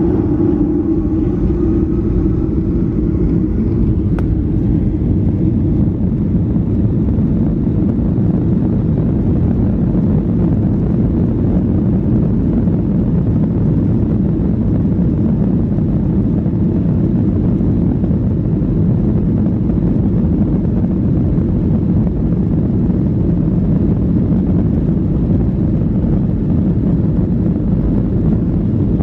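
Cabin noise inside a Boeing 737-800 taxiing on the ground: a steady low rumble from its CFM56 engines and the airframe rolling on the taxiway, with a low hum fading over the first couple of seconds.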